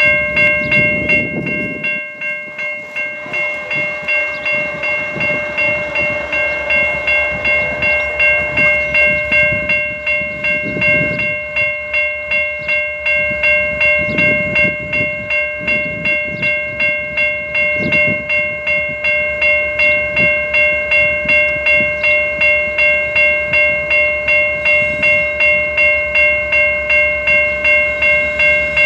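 Railroad bell ringing continuously at about two strokes a second, each stroke's clear ringing tone carrying over into the next.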